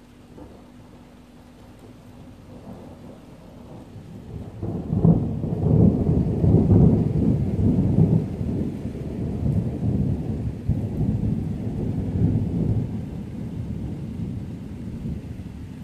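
Thunder rolling: a deep rumble that builds about two seconds in, swells loudest from about five to eight seconds, then slowly dies away.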